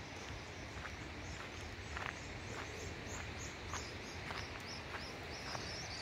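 Footsteps crunching on a dirt road at a steady walking pace, a little under two steps a second. Behind them, short high chirps repeat two to three times a second over a low rumble.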